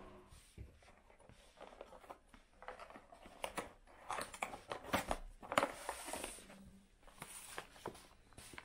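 Paper vitamin sachets crinkling and rustling as they are handled and pulled from a cardboard box: an irregular run of small crackles and ticks, busiest in the middle.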